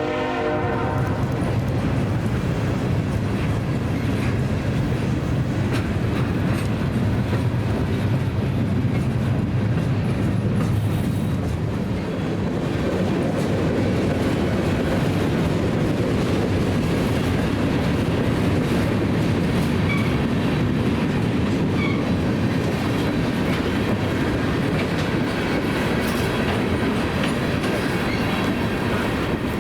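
BNSF manifest freight train rolling past: a steady rumble of cars with clickety-clack of wheels over the rail joints. The locomotive's horn cuts off about a second in.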